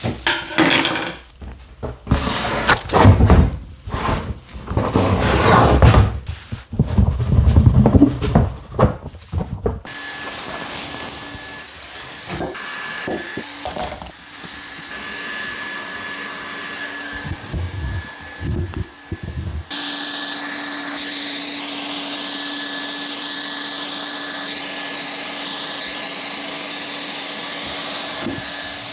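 Loud, irregular scraping and knocking of workshop handling for about the first ten seconds. Then a hand-held hot-air plastic welding gun blows steadily with a thin whine, with a few clatters of clamps being handled. About twenty seconds in it settles into a steadier, louder run as it is readied to weld the polypropylene base seam with filler rod.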